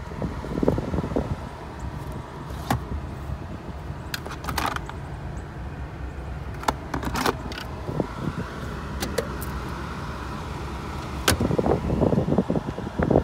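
Handling noise inside a car's cabin: scattered clicks, taps and light rattles over a steady low rumble, with a busier patch of rattling near the end.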